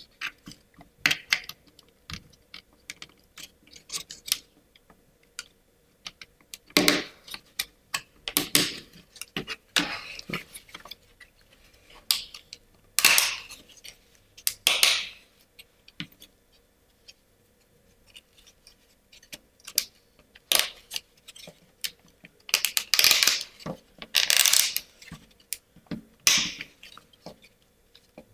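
Wooden parts of a Ugears Card Holder kit being handled and pressed together: scattered clicks and knocks of wood on wood, with several longer scraping rubs as pieces are pushed into place.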